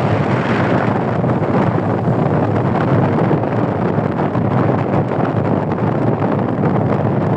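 Wind buffeting the microphone aboard a moving boat, a steady loud rushing noise that masks any engine or water sound.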